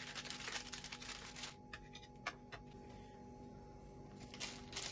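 A metal slotted spatula slides under a baked pizza on a parchment-lined baking tray, and the baking paper rustles and crinkles for about the first second and a half. After that come a few soft, separate clicks.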